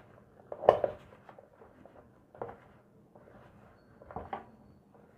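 Hands mixing and kneading soft maida dough in a bowl: scattered soft squishes and light knocks, the loudest about three-quarters of a second in.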